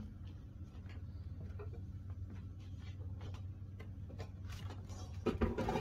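Dishes being handled: scattered light clinks and knocks, irregular, over a steady low hum, with a louder clatter near the end.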